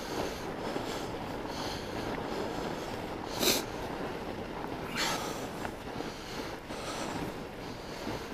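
Fat-bike tires (45NRTH Dillingers at about 5 PSI) rolling over packed, groomed snow with a steady soft hiss, broken by two short sharp noises about three and a half and five seconds in, the first the louder.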